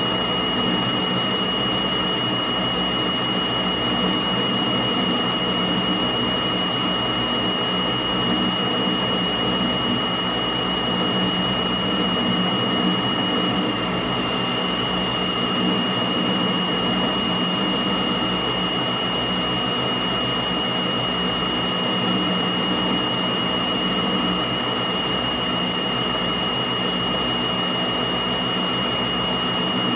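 Metal lathe running steadily, its spindle turning the workpiece with a boring bar held in the bore. A steady high whine sits over the even machine noise.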